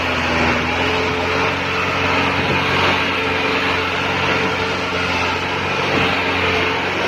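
Massey Ferguson 385 tractor's four-cylinder diesel engine running hard at a steady pitch under heavy load as it pulls a fully laden sugarcane trolley.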